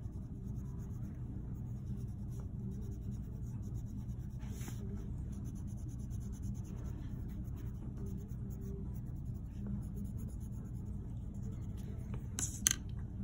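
Prismacolor Premier coloured pencil shading on paper: soft, scratchy pencil strokes over a steady low hum, with a short sharp sound near the end.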